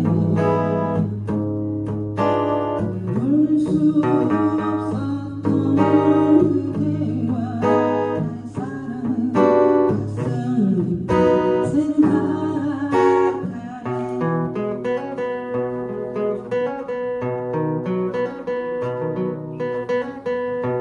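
Guitar played in a slow rock strumming pattern, with palm-muted chords and bass-note runs. The strokes are louder and more spaced in the first half, then turn to denser, quieter picking from about two-thirds of the way in.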